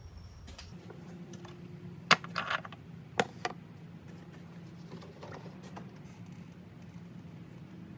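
Sharp clicks and clinks of parts being handled under the hood while engine oil is topped up, loudest about two and three seconds in, over a steady low hum.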